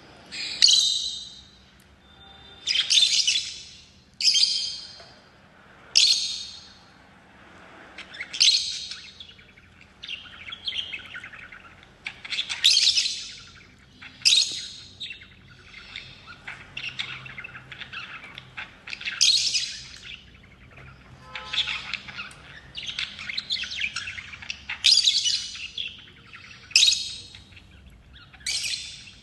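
Lovebirds calling in repeated high-pitched bursts of rapid chirps, a new burst every second or two.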